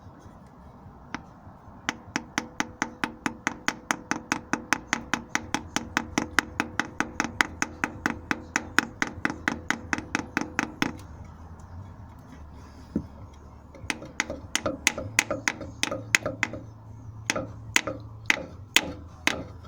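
A hammer tapping a block of wood to drive a new gearbox rear seal into a Suzuki Jimny's R7ME gearbox: a quick, steady run of about four taps a second for some nine seconds, a pause, then a slower, irregular series of taps.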